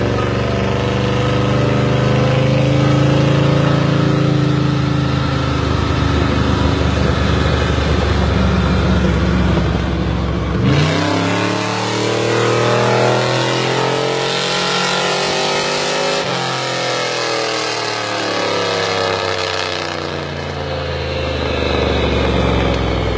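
Car engine running on a chassis dynamometer with the driven wheels spinning the rollers. It holds a fairly steady speed at first, then about eleven seconds in it jumps and revs up hard, the pitch climbing, and eases back down near the end.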